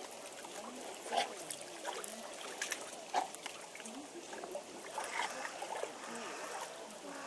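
Water trickling and splashing, with faint voices of people talking in the background and a few short sharp clicks.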